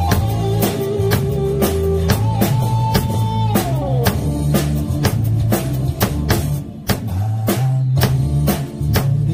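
Sonor drum kit played in a steady groove, with regular kick, snare and cymbal hits over recorded backing music. The backing music carries bass notes and a held melodic line that slides down in pitch about three and a half seconds in.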